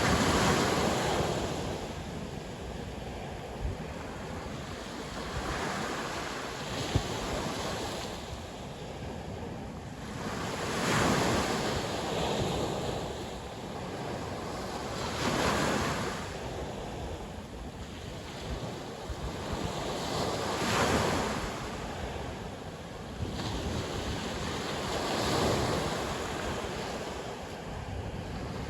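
Sea waves surging and breaking, one swell about every five seconds, over steady wind.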